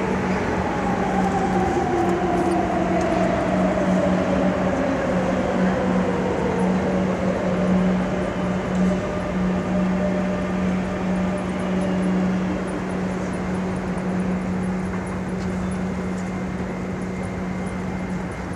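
Madrid Metro 7000-series electric train pulling into the station and braking to a stop. Its electric whine falls steadily in pitch over the first seven seconds, over a steady low hum.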